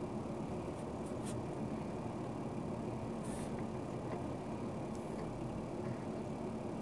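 Quiet room tone: a low steady hum with a few faint, soft clicks.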